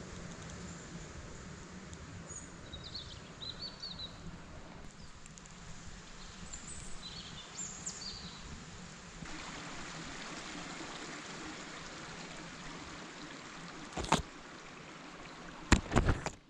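Outdoor ambience: a steady rushing background with a few short bird chirps, followed by a few sharp knocks near the end.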